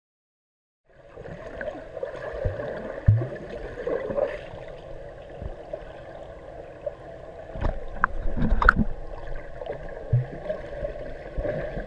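Muffled underwater sound of a swimming pool heard with the microphone submerged: churning water and bubbles from kicking swimmers, starting about a second in, with scattered dull knocks and thuds that are loudest around eight seconds in.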